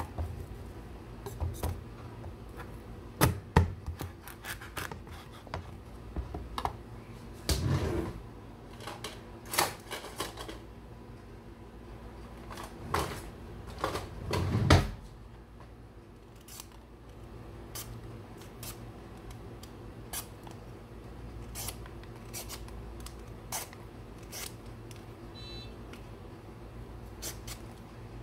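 Kitchen knife cutting and peeling a raw squash on a wooden cutting board: irregular sharp knocks and scrapes of the blade, the heaviest in the first half, lighter scattered clicks in the second half.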